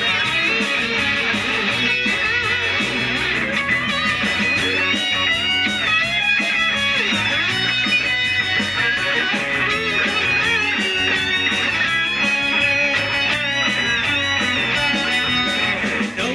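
Live rock band playing an instrumental passage: electric guitars playing sustained, bending lead lines over steady drums.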